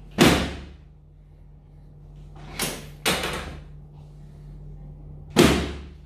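Sharp clacks from a chiropractic drop table as the chiropractor thrusts on the lower back and pelvis: four knocks, a loud one just after the start, a lighter pair around two and a half to three seconds in, and another loud one near the end.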